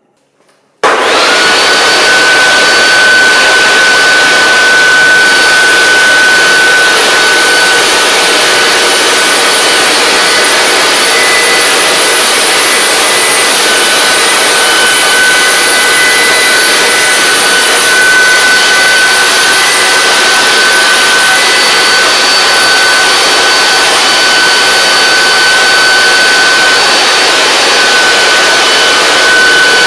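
Home-built gas turbine engine running steadily: a loud jet roar with a high, steady turbine whine. It starts abruptly about a second in.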